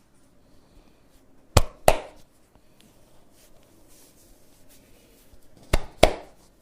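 Two pairs of sharp hand slaps, each pair two quick strikes about a third of a second apart, the second pair about four seconds after the first: percussive massage strokes.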